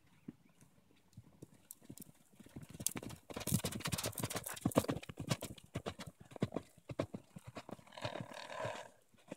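Horse cantering on a sand arena, its hoofbeats rising to a dense, loud run of thuds as it passes close, then thinning out. A brief call sounds near the end.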